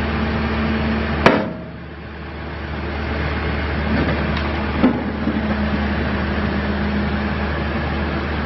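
2013 Case 580N backhoe loader's diesel engine running steadily. A sharp clank about a second in is followed by a brief drop in the sound, which builds back up over the next second or two. A lighter knock comes near the middle.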